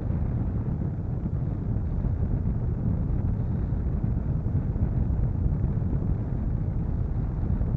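Steady rush of airflow buffeting the microphone of a camera on a glider in flight, with no motor heard.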